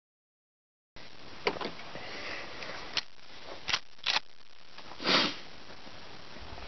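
Silent for about a second, then steady outdoor background hiss with a few short faint clicks and, about five seconds in, one louder short sniff close to the microphone. No shot is fired.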